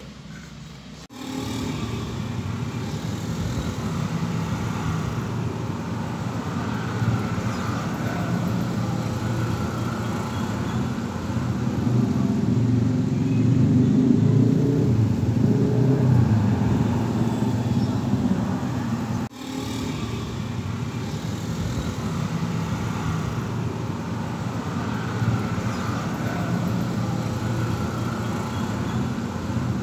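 Steady rumble of a running motor vehicle engine, starting suddenly about a second in, with a brief break about nineteen seconds in.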